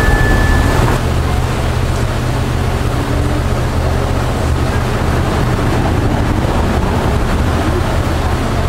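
Inland tanker barge's diesel engine running with a steady low hum as the barge moves through the lock chamber, with wind rumbling on the microphone. A short, steady high tone sounds in the first second.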